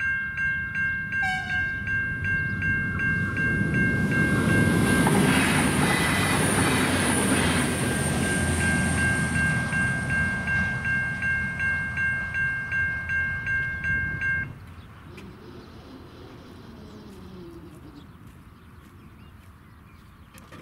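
Level-crossing electronic bells (Safetran Type 3 e-bells) ringing at about two strikes a second while a train passes over the crossing, its rumble and rail noise swelling to a peak and then easing. The bells cut off suddenly about two-thirds of the way through, leaving the train's sound fading away.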